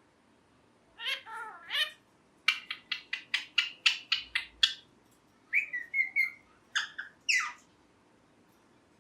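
Pet ringneck parrot (rose-ringed parakeet) calling. A few calls come about a second in, then a fast run of about ten sharp chirps, about five a second, then a few more squawky calls before it stops.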